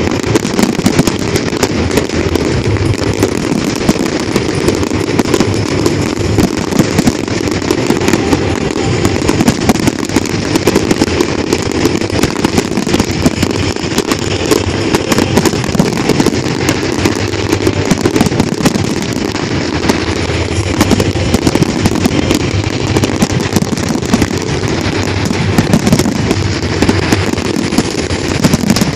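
Dense barrage of aerial firework shells bursting, a continuous run of overlapping bangs and crackles with no pause.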